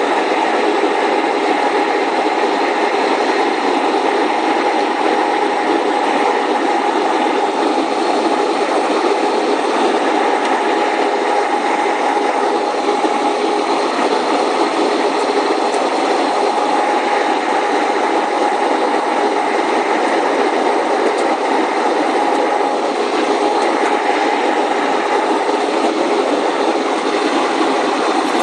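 Steady jet airliner cabin noise during descent: engine hum and rushing air heard from inside the cabin, with a few faint steady tones running through it.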